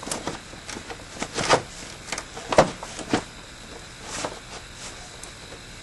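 Irregular clicks and knocks of a screwdriver and the plastic air intake housing as a bolt is screwed in to hold the intake down. The loudest knock comes about halfway through.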